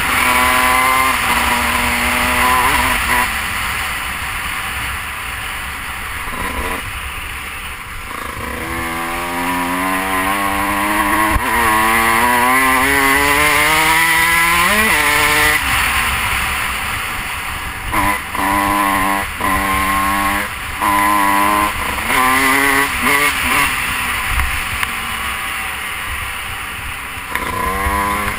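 Dirt bike engine under hard riding: it pulls up through the revs for several seconds with a brief dip at a gear change, then the throttle is snapped on and off in short bursts about once a second. Wind rushes over the helmet-mounted camera underneath.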